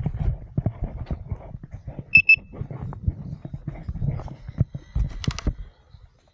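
Knocks, clatter and rustling as a Leaperkim Veteran Patton electric unicycle is gripped and handled in sand, with two short high electronic beeps about two seconds in. A burst of sharp clicks comes about five seconds in.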